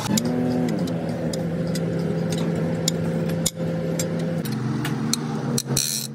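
An engine running steadily, its pitch sweeping up and back down just after the start and shifting about four and a half seconds in, with sharp clicks and knocks scattered throughout.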